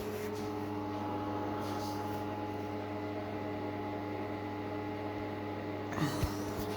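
A steady machine hum with several fixed tones, with a short knock about six seconds in.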